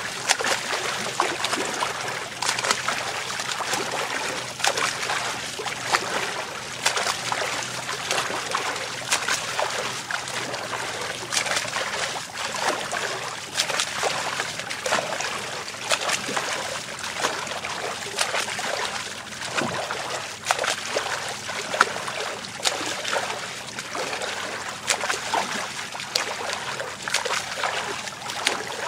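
A swimmer's front-crawl strokes splashing in open sea water: arms slapping and churning the surface, with a constant patter of splashes and dripping water.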